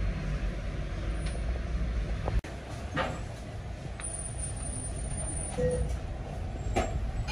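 A large metal ladle scooping and turning rice in a big steel cooking pot, with a few short scrapes of metal on metal, over a steady low rumble.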